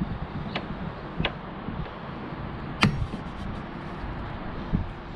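Old weatherstrip retaining clips being worked out of a car's rear door: a few sharp clicks over handling rumble, the loudest about three seconds in.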